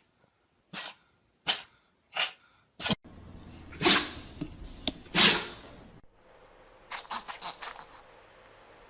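Dogs sneezing: four short, sharp sneezes about two-thirds of a second apart, then two bigger sneezes, then a rapid run of about seven short puffs within a second.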